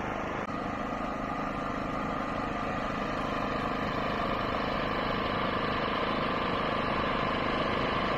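Steady running of an engine or machine, with a constant hum that does not change in pitch.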